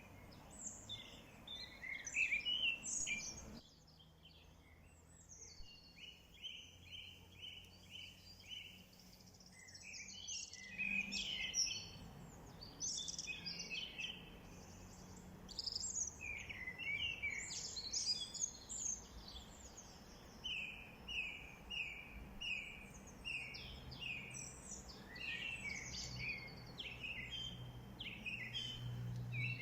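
Several songbirds singing and calling over a faint outdoor background, including twice a quick series of evenly repeated short notes. The background hiss cuts out suddenly about four seconds in and comes back around ten seconds.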